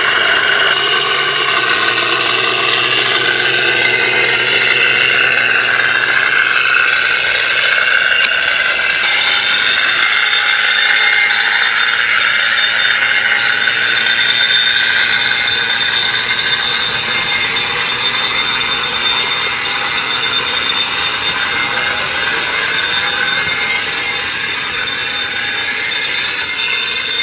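Motors and gearing of a scratch-built 1:6 scale radio-controlled fire engine running, a whirring, rattling whine whose pitch shifts as the model changes speed, mainly in the first third.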